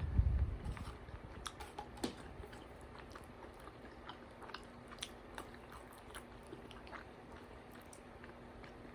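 A person chewing food close to the microphone during a mukbang, with a low thump right at the start and then faint, irregular small clicks of chewing.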